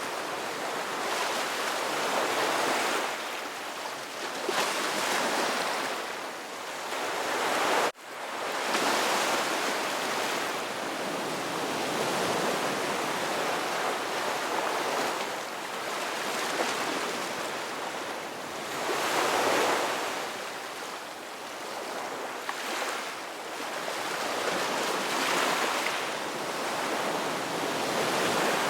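Ocean surf: waves breaking and washing in, a steady rush that swells and fades every few seconds. A momentary dropout about eight seconds in.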